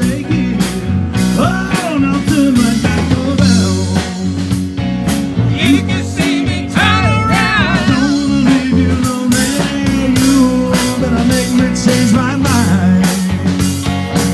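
A live band playing blues rock: electric guitar through a valve amp, with drums and cymbals and a singing voice.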